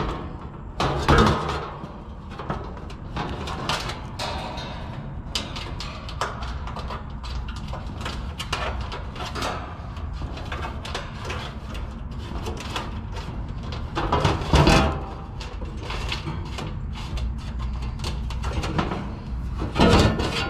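Metal condenser fan grille, with the fan motor and blade bolted beneath it, being handled against the outdoor unit's cabinet: scattered clanks and rattles of the wire grille and sheet metal, with louder knocks about a second in, about two-thirds of the way through, and near the end.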